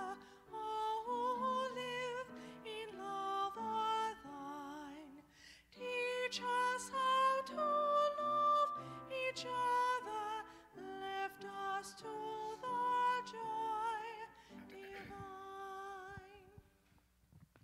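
A woman singing a hymn solo with vibrato into a microphone, over instrumental accompaniment; the last note fades out near the end.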